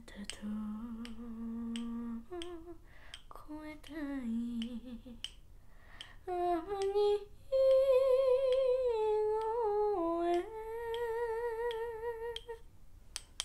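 A girl humming an enka-style melody with wide vibrato, while two sticks of chalk are tapped together in sharp little clicks between and under the phrases. The humming stops near the end.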